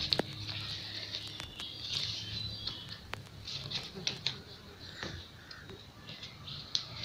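Pleated paper rustling and crinkling as it is pressed and spread into a fan by hand, with scattered light clicks and taps on the table.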